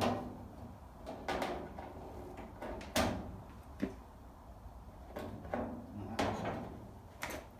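Sheet-steel body panel being fitted onto a classic Mini's rear bodywork: about six separate metal knocks and clunks with brief scraping as it is shifted into place and its location holes lined up.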